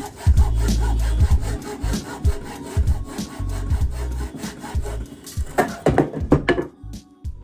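A saw cutting through a piece of wood in quick back-and-forth strokes, over background music that drops away near the end.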